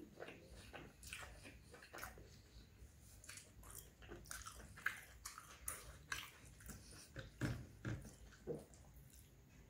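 Close-miked eating sounds: chewing a mouthful of roti and curry, with irregular wet clicks and soft squelches.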